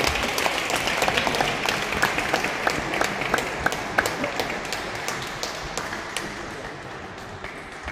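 Spectators applauding: many hands clapping at once, loud at first and then thinning out and dying away over several seconds.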